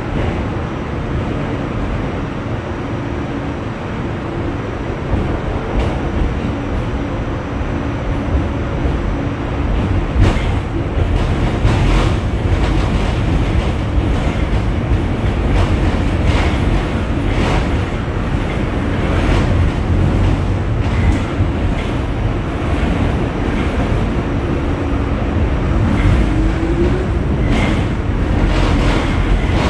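Inside an R46 subway car in motion: a steady low rumble of wheels on rail and the running car, with sharp clicks and clatters that come more often from about ten seconds in.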